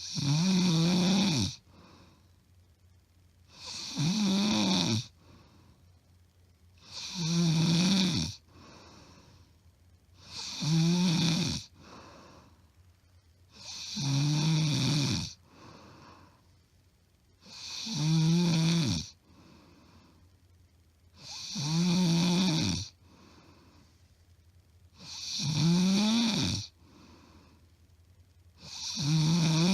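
A woman's loud snoring, recorded close up: nine even snores at a regular pace, each a pitched, rasping in-breath about a second and a half long, roughly every three and a half seconds, with quiet between them. The breathing never pauses, and the snorer's husband says it is not sleep apnea, just very loud snoring.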